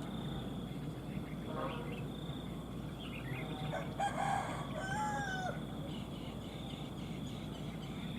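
A rooster crows once, about four seconds in, over a steady high insect buzz.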